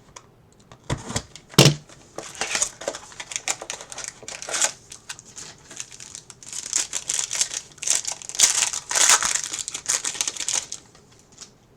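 Trading card box and pack wrapper being torn open and crinkled by hand, with irregular crackling and one sharp crack about one and a half seconds in.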